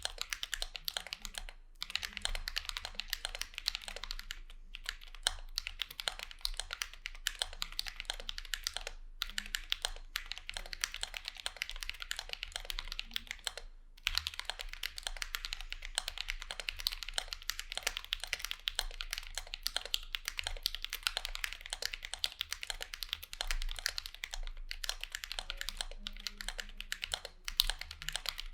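Continuous fast typing on a mechanical keyboard with Drop Holy Panda tactile switches lubed with Krytox 205g0, in a Vulcan x KBDfans Maja Alice-layout case: a dense run of key clacks with brief pauses a few times.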